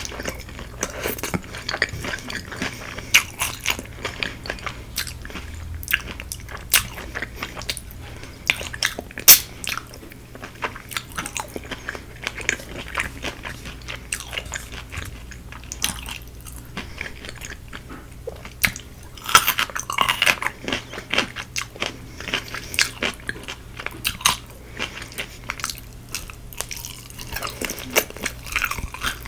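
Crunching and chewing of crispy Korean fried chicken close to the microphone: many sharp crackling crunches from bites into the crust, one louder crunch about nine seconds in.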